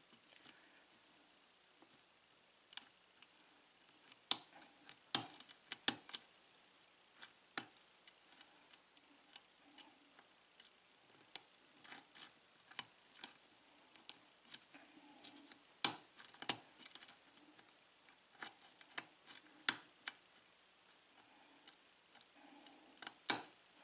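Lock pick and tension wrench working inside an Ace five-pin cylinder lock during single-pin picking: irregular sharp metal clicks and ticks as the pick lifts the pin tumblers one by one, a few much louder than the rest.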